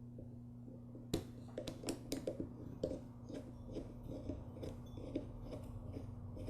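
Small metal clicks and ticks of a pick and driver working the threaded main jet out of a lawnmower carburetor body, irregular and several a second from about a second in, over a faint steady hum.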